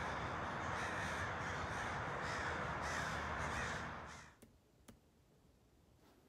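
Crows cawing over a steady hiss of outdoor ambience, which fades out about four seconds in. Near silence follows, with two faint clicks.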